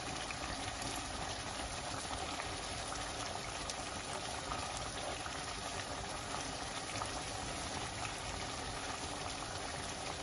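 Chicken korma bubbling and sizzling steadily in a non-stick pot, with fine crackles throughout. The oil has separated on top, and a little water has been added to simmer the chicken until tender.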